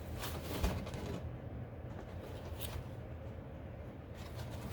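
Faint handling noise of small plastic toy pieces: light rustling and a few soft taps in the first second and once more near the middle, over a steady low hum.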